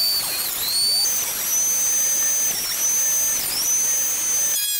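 Delta 12-inch portable thickness planer running with a high-pitched motor whine as a white oak board is fed through; the pitch dips briefly twice, about half a second and three and a half seconds in, and shifts near the end.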